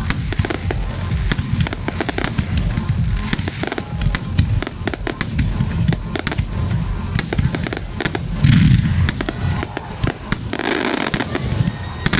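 Aerial fireworks going off in rapid succession: many sharp bangs and crackles over a dense low rumble of overlapping booms, with a heavier boom about eight and a half seconds in.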